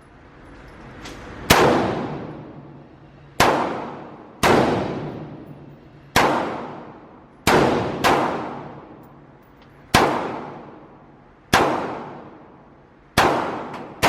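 Gunshots fired one at a time, about nine shots at irregular gaps of one to two seconds, each sharp crack echoing and dying away over about a second.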